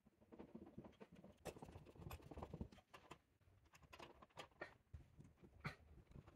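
Hand screwdriver driving a screw through a metal mounting bracket into a plastic ceiling electrical box: faint, irregular clicks and creaks. The screw is a little too big for the box and cracks its plastic slightly.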